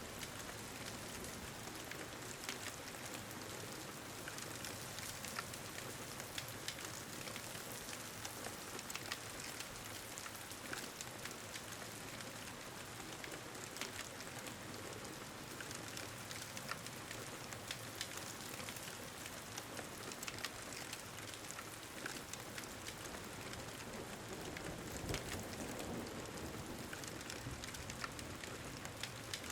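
Ambience of steady rain, an even hiss, with frequent small, sharp crackles from a wood fire.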